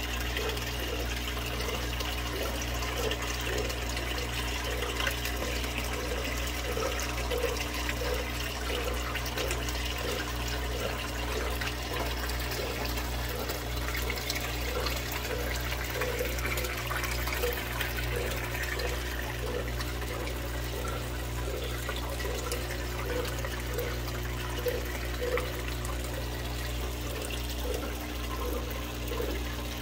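Aquarium water running steadily, a continuous bubbling trickle over a low hum, with a faint soft pulse about twice a second.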